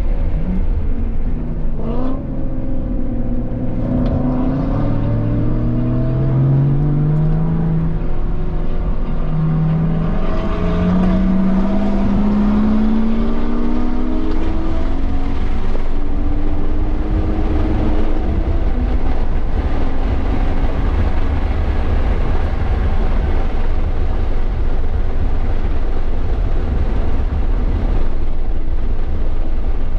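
A 2017 BMW M240i's turbocharged inline-six accelerating hard, its pitch climbing, dropping briefly with an upshift about nine seconds in, then climbing again. From about sixteen seconds on, a steady rush of wind and road noise at speed covers the engine.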